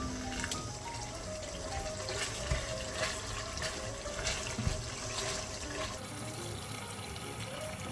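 Running water, as from a kitchen tap, with a few knocks and clicks, under soft background music.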